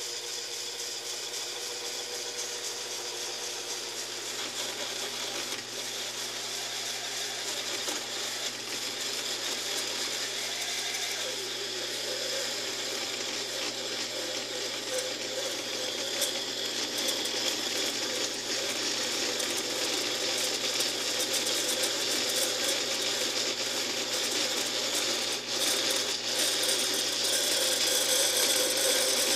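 Taig lathe running while a spring parting-off tool, fed in by hand, cuts into a mild steel bar: a steady grinding cutting noise that grows louder as the cut deepens, with a tone coming up about a third of the way in.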